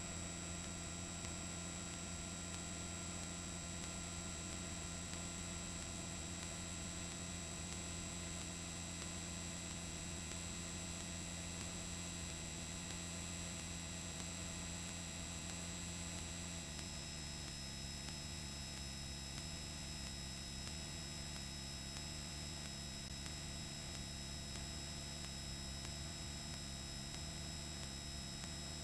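Helicopter's steady engine and rotor drone with constant high whining tones, faint. Its low tones shift down a step about halfway through, and a new high tone joins them.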